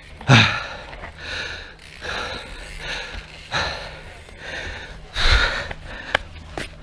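A person breathing heavily, close to the microphone: panting breaths about once a second, the strongest just after the start and again about five seconds in.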